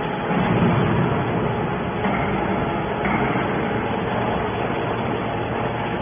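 Hydraulic scrap metal baler running, its power unit giving a steady mechanical drone with a constant hum.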